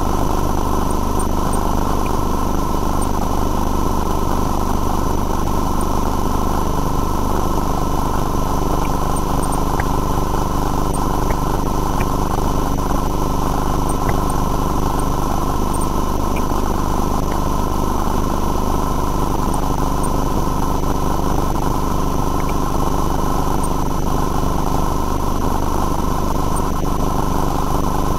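An engine running steadily at idle, with steady high-pitched electrical whines over it and a few faint ticks.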